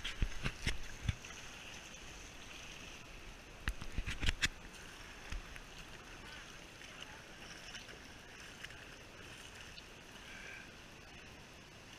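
River water rippling and gurgling steadily around a tube floating at water level. There are a few sharp knocks just after the start and a cluster of them about four seconds in.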